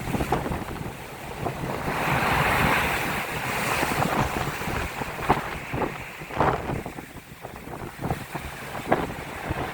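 Storm waves breaking and rushing up the beach, the surge loudest a couple of seconds in, with wind buffeting the microphone and a few sharp cracks later on.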